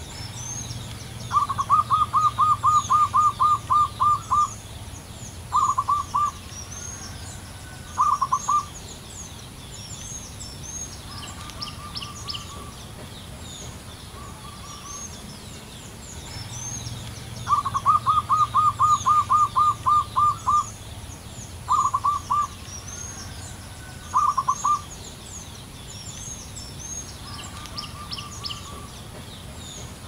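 Zebra dove (perkutut) singing: a rapid run of about a dozen staccato coos followed by two short bursts, the whole phrase given twice. Fainter coos sound between the phrases, and small birds chirp high in the background.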